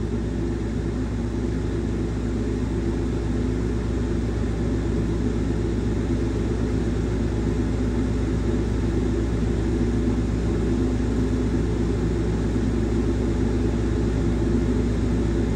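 An engine running steadily at a constant speed, an even low hum that does not change.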